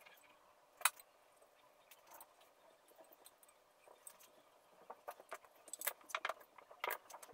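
Faint, scattered light clicks and taps of a kitchen knife and a glass baking dish on a silicone mat as a sheet of dough is cut around the dish, with one sharper click about a second in and a run of taps near the end.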